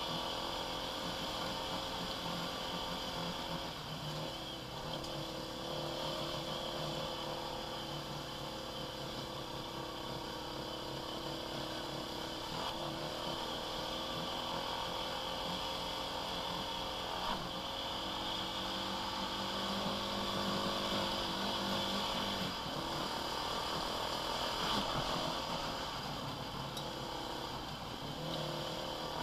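Quad bike (ATV) engine running steadily as the quad rides along a gravel dirt track, with small shifts in engine speed.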